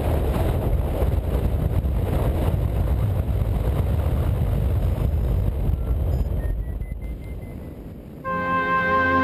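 Wind rumbling over a wing-mounted camera's microphone on a hang glider, fading out over a couple of seconds. Music with steady sustained notes starts suddenly near the end.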